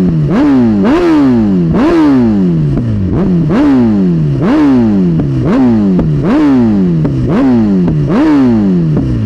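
Suzuki GSX-R1000R inline-four engine being revved over and over, about once a second: each throttle blip snaps the revs up and they sink slowly back toward idle.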